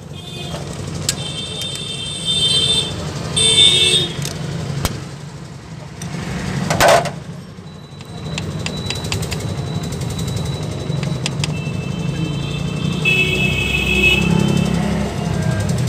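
Socket wrench on a long extension tightening the connecting-rod cap bolts from under a Tata Indica V2 engine, with scattered clicks. A steady rumble of traffic runs underneath, with high horn-like tones twice and one short loud noise about seven seconds in.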